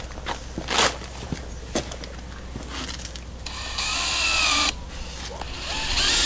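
A few sharp knocks, then a cordless drill run against the wood siding in two bursts: a steady whine about three and a half seconds in, and again building up near the end.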